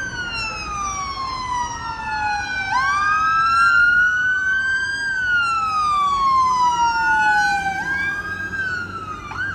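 Emergency vehicle siren sounding a slow wail, its pitch sliding down and back up about every five seconds, with a second wail overlapping it. It drops away sharply at the end.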